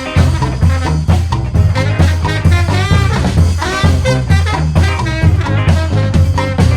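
Brass band playing a swing-style tune: horns carrying the melody over a low bass line and steady drums.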